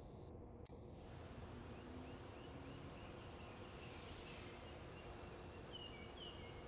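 Wind rumbling on the microphone, with faint birdsong: a run of short repeated chirps, then two clearer downward notes near the end.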